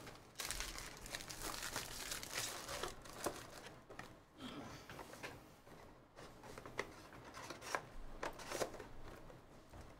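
Trading-card pack wrapper, from a Panini Phoenix football hobby pack, being torn open and crumpled: an irregular crinkling with sharper crackles now and then.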